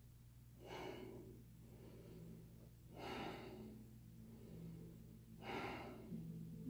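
A person's deep, audible breaths, three in a row about two and a half seconds apart, taken while holding a yoga pose, over a steady low hum.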